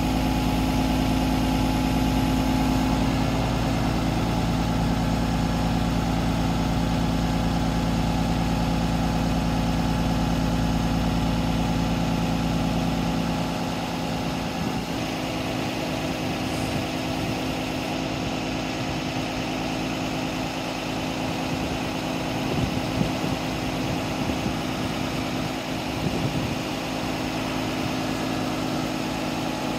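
Utility bucket truck's engine running steadily at idle, a constant drone that powers the raised aerial boom. The deepest rumble eases about halfway through, and a few light knocks come near the end.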